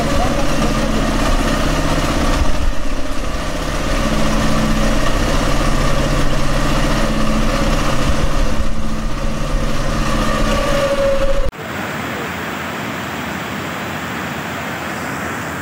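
A loud, steady engine-like hum that cuts off suddenly about eleven and a half seconds in. It gives way to a quieter, even rushing noise of flood water.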